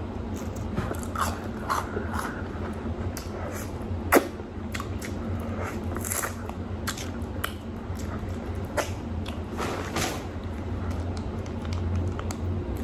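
Close-miked chewing of a ketchup-dipped onion ring, with irregular wet mouth smacks and clicks and one sharper click about four seconds in.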